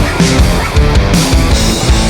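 Loud background rock music with distorted guitar and a steady drum beat.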